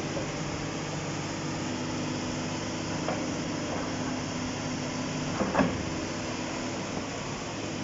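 JCB tracked excavator's diesel engine running steadily over the rush of muddy floodwater, with a few light clicks and one sharp knock about five and a half seconds in.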